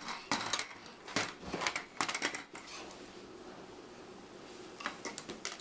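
Hard plastic toy knocking and clattering on a tile floor as a baby handles it: a quick run of sharp clicks and knocks over the first two to three seconds, then a few more near the end.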